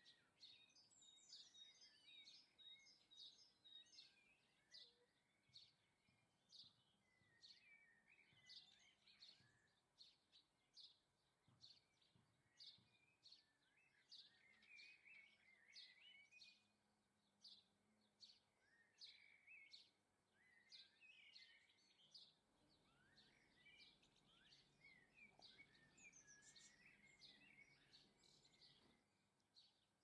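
Faint garden birdsong: many short, high chirps and twittering calls from several small birds, coming thick and fast throughout.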